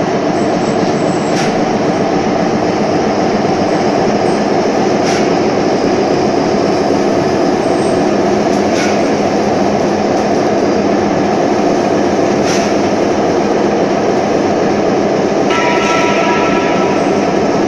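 Automatic concrete feeding machine for pile moulds running: a loud, steady, heavy mechanical rumble with a few faint clicks. A short steady tone sounds about two seconds before the end.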